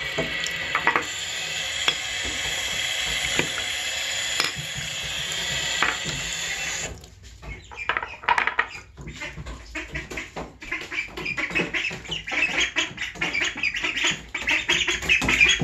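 A tap running into a sink for about seven seconds, then shut off. Then ducklings peeping rapidly and repeatedly, getting louder toward the end.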